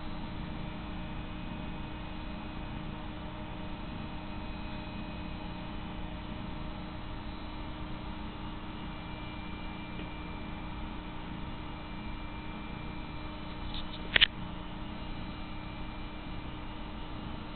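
Domestic cat purring while being stroked: a steady low rumble under an even electrical hum. A short sharp click about fourteen seconds in.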